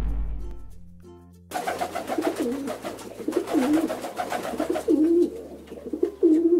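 Pigeon cooing, four low rising-and-falling coos about a second apart, with music underneath. Before them, a deep rumble dies away in the first second.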